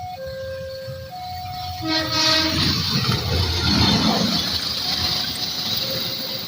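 Level-crossing warning alarm sounding two alternating tones, then about two seconds in a train horn sounds briefly and a passing train's rumble and hiss take over, louder than the alarm.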